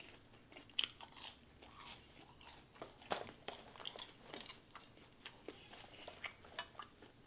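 A person chewing a mouthful of McDonald's food: faint, irregular clicks and smacks of the mouth and jaw.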